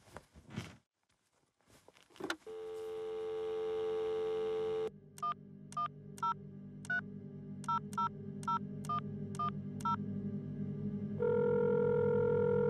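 Corded touch-tone telephone: the handset is picked up with a click, the dial tone sounds for about two seconds, then about ten keypad tones beep out a number, and near the end the steady ringing tone of the line comes on. A low drone slowly builds underneath.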